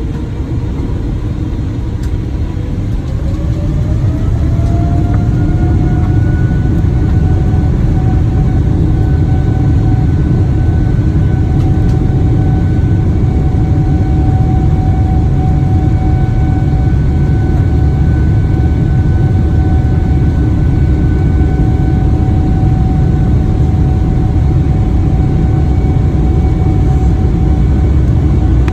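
Jet airliner engines spooling up to takeoff thrust, heard from inside the cabin: a whine rises in pitch over the first few seconds, then holds steady over a loud, constant rumble of the takeoff run.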